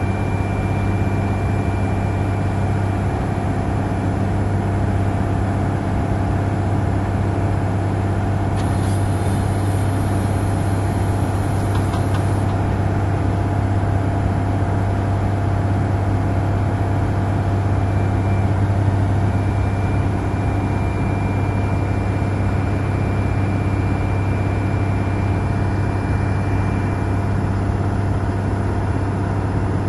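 Diesel engine of a Wirtgen W220 cold planer running steadily at constant speed, a deep even drone. A thin high whine comes and goes over it, with a short hiss about nine seconds in.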